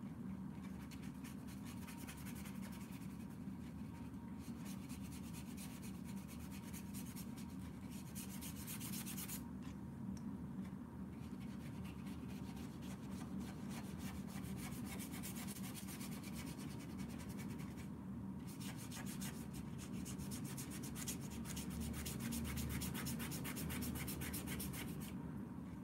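Paintbrush rubbing and scratching on watercolour paper: a steady, rapid scrubbing, busier and brighter about eight seconds in and again from about eighteen seconds on.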